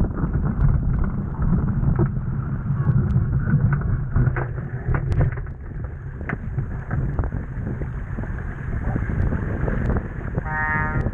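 Wind buffeting the microphone over the water noise of a Laser Vago sailing dinghy under way, with scattered small clicks and knocks. A brief pitched sound comes near the end.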